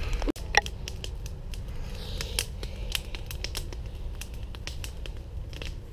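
Wood bonfire burning, crackling with many irregular sharp pops and snaps over a low steady rumble.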